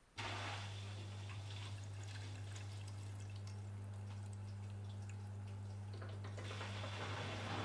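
AEG Lavamat 8000-series front-loading washing machine's pump switching on with a steady low hum, and water hissing and dripping as it is sprayed onto the laundry in the drum: the ÖkoMix DirectSpray phase wetting the load. About six seconds in, the water sound grows into a fuller rush.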